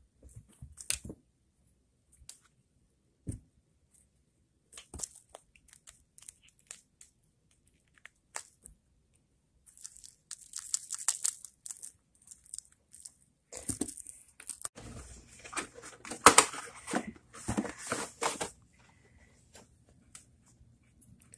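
Crinkly paper or plastic packaging rustling and tearing in bursts through the second half, with scattered light taps and clicks before it.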